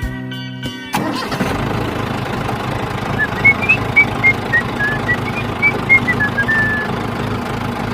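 Background music cuts off about a second in and a steady engine-like running sound takes over. Midway there is a quick run of about fifteen short, high chirping notes that rise and then fall.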